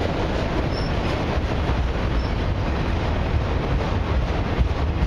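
Autorack and lumber flatcars of a long freight train rolling past close by, a steady rumble of steel wheels on the rails.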